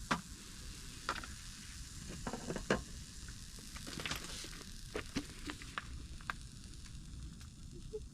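Bibimbap sizzling in sesame oil as it cooks, with scattered clicks and scrapes of a utensil stirring it.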